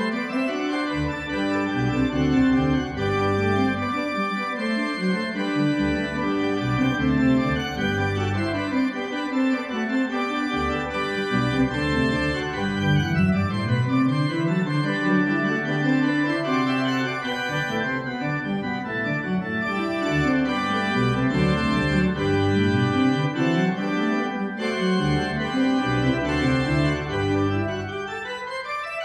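Church organ playing a piece with many quickly moving notes over a moving pedal bass line; it becomes quieter near the end.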